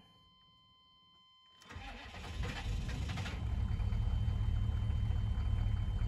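A 1996 GMC K3500's 6.5L diesel V8 cranks and catches, starting a little under two seconds in, then settles into a steady idle. This is a test start after swapping the injection-pump driver module connection, done to find the cause of a hard start and rough running.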